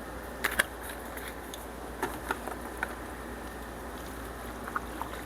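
Light kitchen clicks and taps, likely a seasoning container and utensils at the pan. There are two sharp clicks about half a second in, then scattered light taps over a steady low hum.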